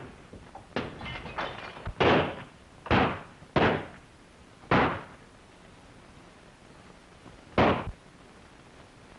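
Gunshots in a movie shootout: about six separate sharp reports at uneven intervals, each with a short tail.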